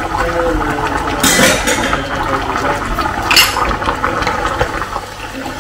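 Pork adobo sauce bubbling at a simmer in a pot, stirred with a wooden spatula. Two louder scraping sounds stand out, about a second in and again a little after three seconds.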